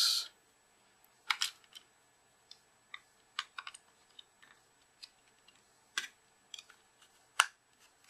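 Light plastic clicks and taps as batteries are pressed into a TV remote's battery compartment and the plastic battery cover is fitted back on. Scattered single clicks, the sharpest about a second and a half in, around six seconds in and near the end.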